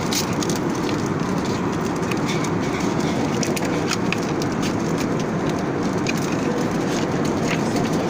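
Steady cabin noise of an Airbus A320-200 in cruise, the even hiss and rumble of airflow and engines heard from an economy seat, with faint scattered light clicks throughout.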